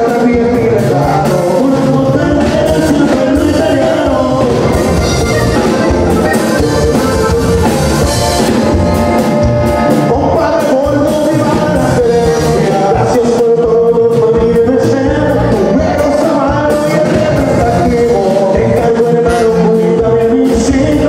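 Live norteño band music, played loud and steady: a button accordion carries the melody over sousaphone bass, guitar and drum kit.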